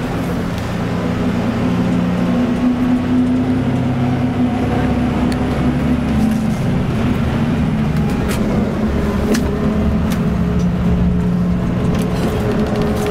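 Steady cabin drone of a Scania K360IB coach on the move, its engine running under road noise. A few sharp clicks and rattles come in the second half.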